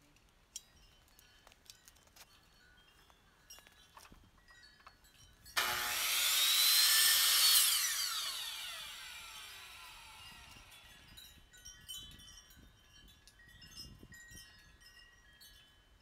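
Electric compound miter saw switched on and cutting through a thin strip of pallet wood, starting suddenly about five and a half seconds in and lasting about two seconds, then the blade and motor winding down with a falling whine.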